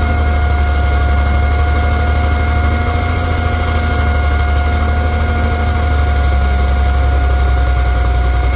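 Hyundai 480 excavator running steadily: a heavy diesel rumble with a steady high whine over it.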